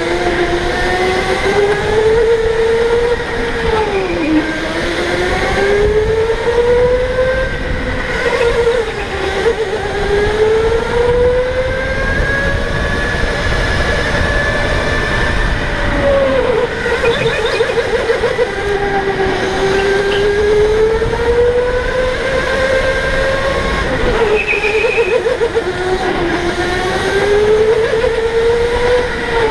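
Electric go-kart motor whining, its pitch rising with speed on the straights and dropping sharply several times as the kart slows for corners, over a low rumble.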